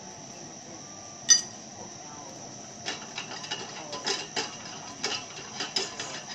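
Metal serving utensils clinking and scraping in a copper flambé pan as crêpes are worked tableside: one sharp ringing clink about a second in, then a run of irregular light taps and scrapes from about three seconds in.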